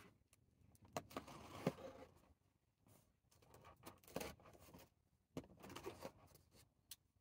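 A cardboard box being handled and its packing tape slit open with a small knife: faint, scattered taps, scrapes and short tearing sounds.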